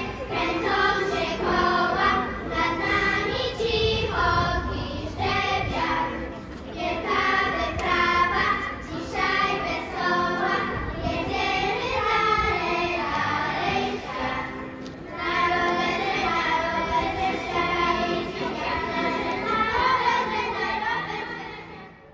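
A choir of young girls singing a song together over music. It fades out near the end.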